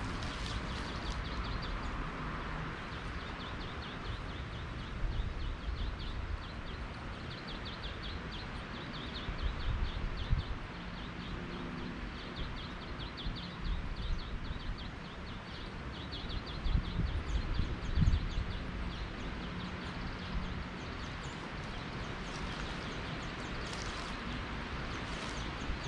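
Outdoor ambience with a rapid, high-pitched chirring trill that comes and goes for most of the time, and a few low thumps of footsteps on the ground.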